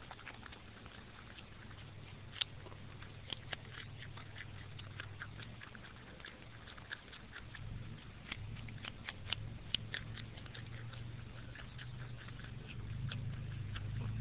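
Woodchuck gnawing and crunching a piece of carrot right at the microphone: a long run of short, crisp crunching clicks, densest midway through. A steady low hum sits underneath and grows louder near the end.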